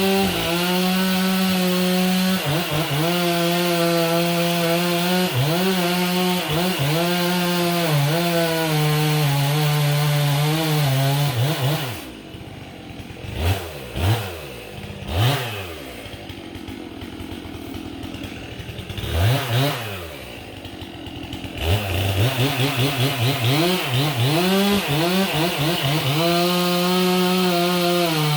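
Gas chainsaw running at full throttle while cutting into a tree, its pitch sagging again and again as the chain bogs in the wood. About twelve seconds in it drops to idle, with four short revs, then goes back to full throttle about ten seconds later.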